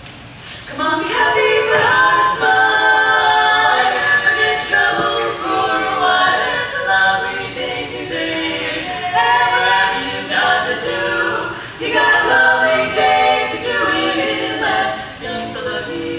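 Women's barbershop quartet singing a cappella in close four-part harmony, starting about a second in.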